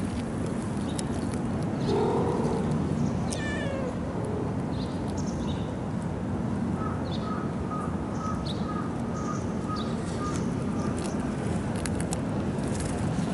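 Stray cats meowing a couple of times, the first about two seconds in and a higher, falling call soon after, over a steady background noise of rain.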